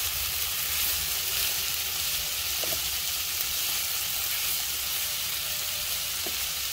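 Minced meat and chopped vegetables sizzling steadily in a frying pan over low heat, stirred now and then with a wooden spatula.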